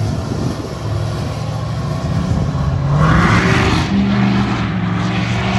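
Emissions-deleted Ford F-350 diesel pickup accelerating away, its engine note climbing about three seconds in with a louder rush, then holding steady.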